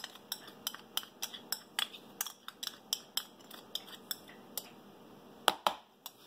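A metal teaspoon clicking against a small jar while ginger-garlic paste is scooped out, about three light clicks a second, then two louder knocks near the end.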